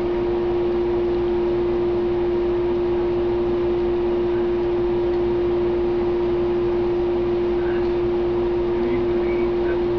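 A loud, steady hum on one strong pitch over a faint hiss, unchanging throughout.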